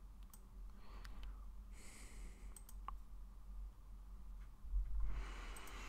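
A few faint computer mouse clicks over a low steady hum, with a breath into the microphone near the end.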